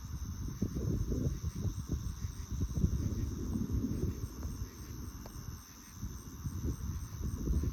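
Steady high-pitched chirring of night insects, typical of crickets, over an irregular low rumble that rises and falls throughout.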